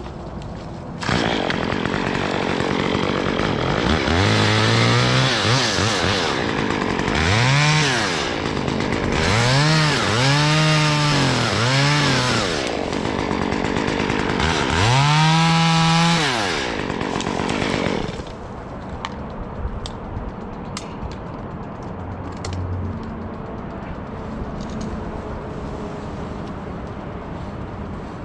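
Chainsaw cutting small branches in a tree, revved up and let back down about six times in short bursts. It falls quiet about two-thirds of the way through.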